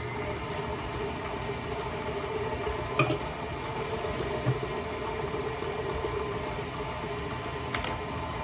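Electric mixer motor running steadily, beating melted butter and eggs, with one sharp click about three seconds in.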